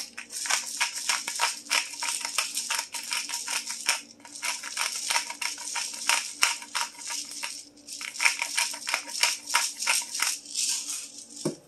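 Black pepper grinder being twisted over a pan, a rapid dry ratcheting crunch. It runs in three long spells with short pauses about four seconds in and just before eight seconds, then stops shortly before the end.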